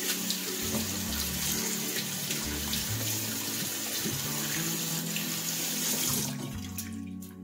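Water running from a single-lever bathroom faucet and splashing over hands being rinsed in the sink. It cuts off sharply about six seconds in as the lever is pushed closed, leaving soft background music.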